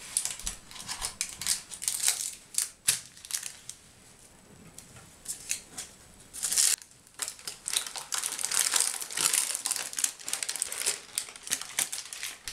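Parchment baking paper crinkling and rustling in irregular bursts as it is peeled off a baked sponge cake, with the densest rustling about six seconds in and again for a few seconds near the end.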